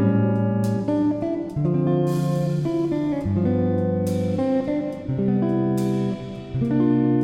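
Background music: a guitar playing chords with plucked and strummed notes.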